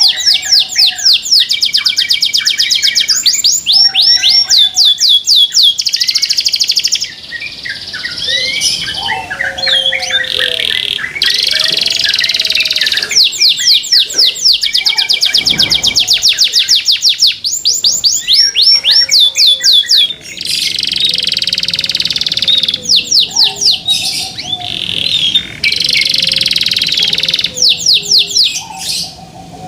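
Domestic canary singing loudly: long phrases of very fast rolling trills and chirps, broken by short pauses, with lower whistled notes in between.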